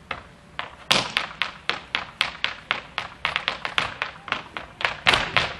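Irish dance hard-shoe footwork on a stage, danced a cappella by a group of dancers: sharp taps and stamps in a fast, even rhythm of about four a second. It starts with a loud strike about a second in, and heavier stamps come near the end.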